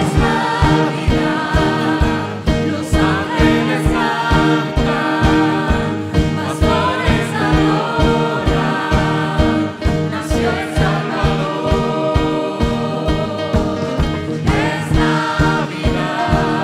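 Church worship team of men and women singing together into microphones over a band, with a steady beat of drums and bass.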